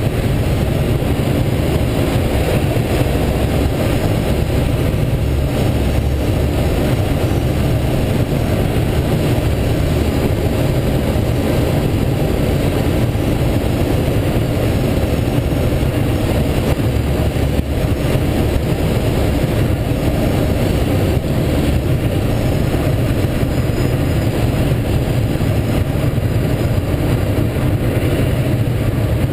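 Steady rush of wind and airflow noise past the cockpit of an engineless Schweizer SGS 2-33A glider in flight on approach, loud and buffeting on a head-mounted microphone.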